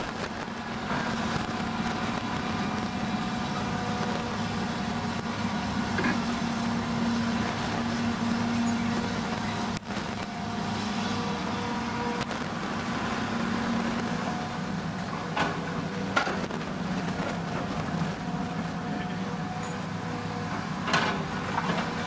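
Diesel engine of a Hitachi hydraulic excavator running steadily under load as it digs and swings buckets of soil. A few short sharp knocks break through, one about six seconds in, two a little past the middle and one near the end.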